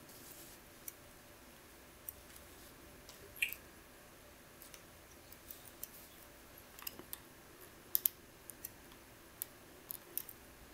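Faint, scattered small metallic clicks and ticks of tweezers handling the pins of an Abus C95 lock cylinder: pins being drawn from the cylinder and set down on cardboard. One louder click about a third of the way in rings briefly.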